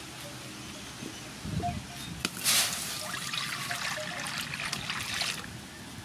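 Water poured from a pot into a large metal wok, splashing steadily for about three seconds, starting a little after two seconds in and cutting off near the end.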